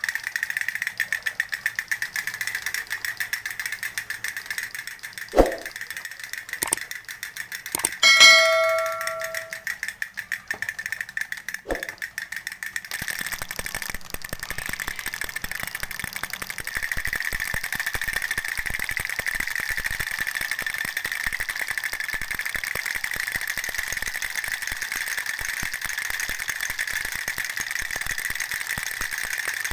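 Fast, steady mechanical rattling, like a small geared mechanism clicking, with a few knocks and a single bell ding about eight seconds in that rings out for a second or so.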